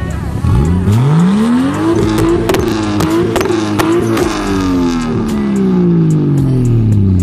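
Mk4 Toyota Supra's engine revved once: it climbs quickly to high revs, holds there for about two seconds with a few sharp cracks, then drops back slowly toward idle.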